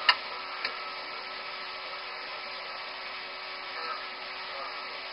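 Cockpit voice recorder audio from a DC-9 flight deck: steady background noise with a constant hum, broken by a sharp click just after the start and a fainter click about half a second later.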